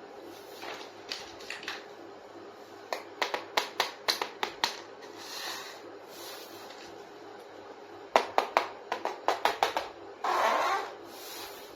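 Small plastic toy kitchen pieces being handled, with runs of quick clicks and taps, and a louder short hiss about ten seconds in.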